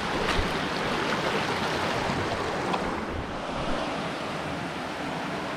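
River water running over rocks: a steady, even rush, with a few faint ticks.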